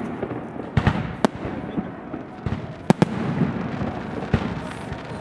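Aerial fireworks exploding: a run of sharp bangs, a couple of them close together, over a steady crackle of bursting shells.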